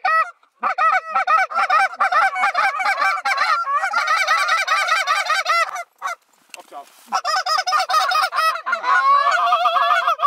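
Goose calls blown fast and loud, imitating Canada geese: a rapid run of honks and clucks, several a second. They break off for about a second just past the middle, then resume.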